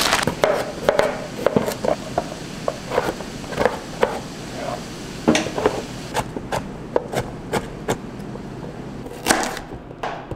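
Kitchen knife chopping carrots on a plastic cutting board: a run of irregular sharp knocks as the blade cuts through the carrot and hits the board, with a few louder ones near the end.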